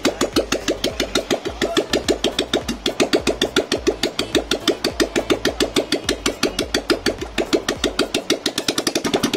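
Royal Enfield Bullet 500 EFI's single-cylinder four-stroke engine running at a steady idle, a quick even thump of about eight to nine beats a second.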